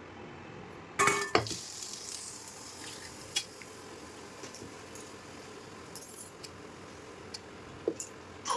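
Kitchen cooking sounds: a utensil knocks loudly against a pan about a second in, then gives a few lighter clinks, over a faint, steady sizzle.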